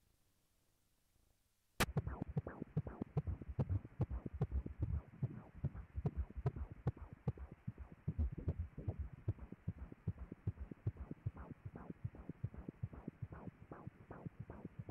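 Fetal heartbeat played through an ultrasound scanner's pulsed-wave Doppler: a steady train of rhythmic beats, about two and a half a second, that starts suddenly about two seconds in.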